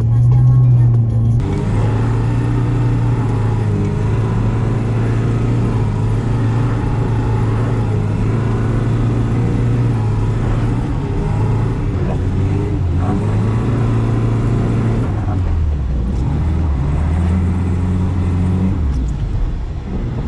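VAZ Zhiguli four-cylinder engine running under load at steady revs, then the revs drop and pick up again over the last few seconds.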